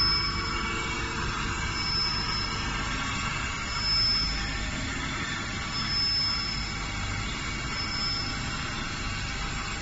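BT-150M automatic cutter grinder running through its grinding cycle: a steady machine noise with a brief high-pitched whine about every two seconds.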